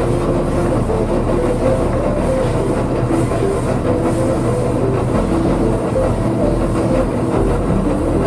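A power shaping or sanding tool running steadily against a wooden skateboard deck, with lofi background music over it.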